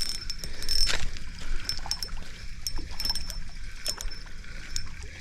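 A hooked crappie being reeled in from the bank: scattered quick clicks from the fishing reel, with some water splashing.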